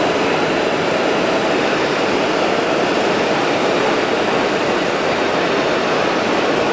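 Steady, even din of a busy exhibition hall: a constant wash of noise with no distinct events.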